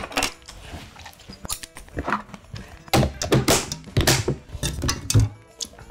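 A series of thunks and clatters as tableware is cleared: a lid pressed onto a glass food container, and wooden chopsticks and a spoon picked up. The loudest knocks come in a cluster about three to four and a half seconds in.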